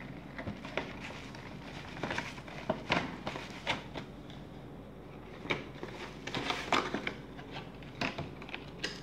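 Packaging being handled: bubble wrap crinkling and the shaver's box and tray shifting, giving irregular crackles and light knocks in scattered clusters.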